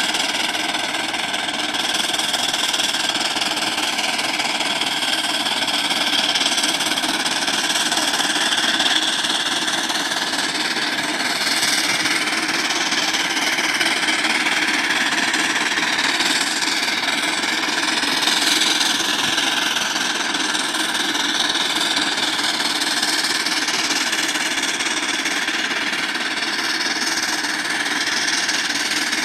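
1907 18-horsepower Avery undermounted steam traction engine running steadily under load while pulling a plow.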